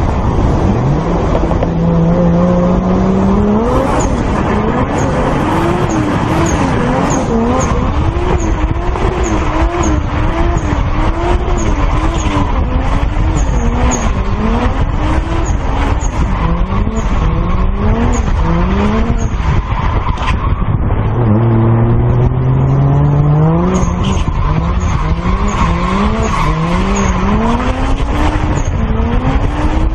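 Car engine revving hard in quick repeated rises and falls of pitch, with a couple of longer climbing revs, over the squeal and rush of tyres skidding as the car drifts.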